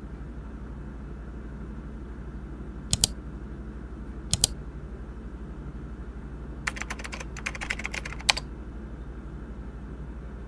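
Computer mouse and keyboard: two quick double clicks about a second and a half apart, then a short burst of fast typing that ends in one harder keystroke, over a steady low hum.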